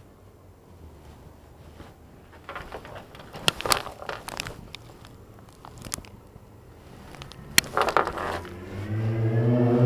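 Dash camera inside a pocket, its microphone picking up crackling, scraping and sharp clicks as fabric rubs and shifts against it. Near the end a loud low droning tone with overtones starts, wavering slightly in pitch.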